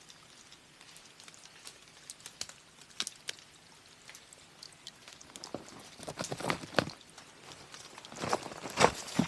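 Scattered light ticks, then footsteps crunching over the ground, coming faster and louder in the second half.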